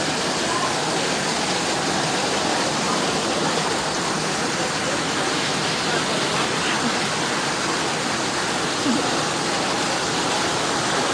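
Fast-flowing muddy floodwater rushing down a flooded street, a steady loud rush of water.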